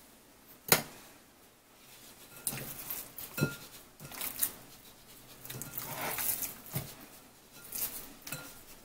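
Hands tossing raw chicken strips with salt and spices in a glass bowl: soft squishing and rustling of the wet meat, with a few sharp clicks against the glass.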